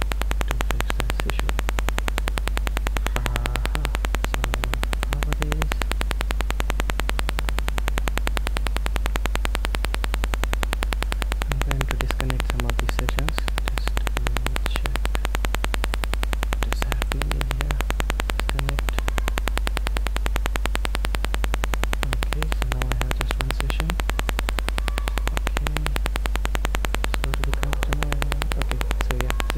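Steady electrical hum and buzz from a faulty microphone input, running at a constant level with no speech heard above it.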